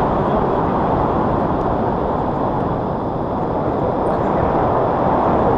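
Steady, loud wind rushing over the microphone of a selfie-stick action camera on a paraglider in flight.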